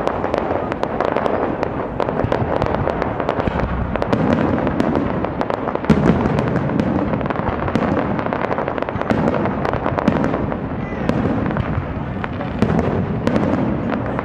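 Fireworks display: a dense, continuous crackle of many small reports from bursting shells and crackling stars, with a louder bang about six seconds in.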